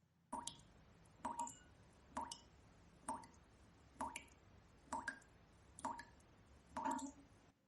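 Water dripping, one drop about every second, eight drops in all, each a short, faint drip with a brief ring.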